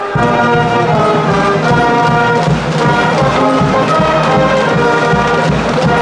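School cheering brass band with sousaphones playing a fight tune with a steady beat. It starts suddenly just after the opening and runs on loudly.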